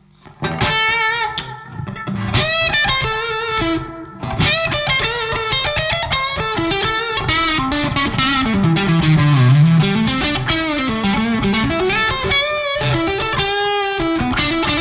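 Electric guitar played through a KOR Leadstar distortion pedal with a delay added, playing a lead line of sustained notes with bends and vibrato. Midway a phrase runs down in pitch and back up.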